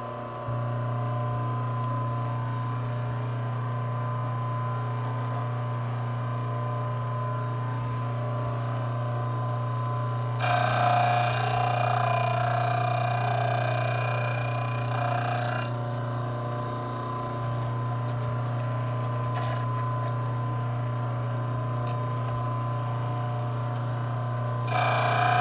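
A Delta electric motor drives the sharpener's grinding wheel, running with a steady hum. About ten seconds in, a drill bit is pressed against the wheel for roughly five seconds, giving a loud, high, ringing grind while a facet is ground. The grinding starts again near the end.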